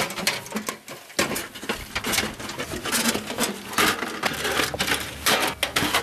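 Thin metal panels of a folding fire box clinking and rattling in many quick clicks as it is collapsed flat by gloved hands.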